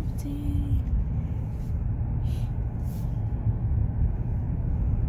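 Road noise inside a moving car's cabin: a steady low rumble of tyres and engine, with a few brief faint hisses.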